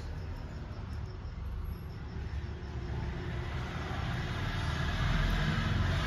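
Steady low rumble and hiss of road and engine noise inside a moving car, growing louder in the second half.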